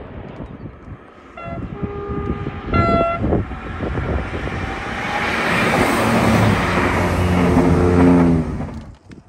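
A train sounds its horn in two short toots, then passes close: a rushing noise builds to a peak with a low drone under it, then drops away sharply near the end.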